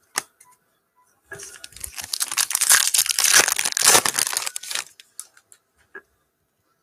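Foil wrapper of a Panini Prizm basketball card pack being torn open and crinkled by hand for about three and a half seconds, loudest in the middle. A sharp click comes just before it and a few light clicks follow.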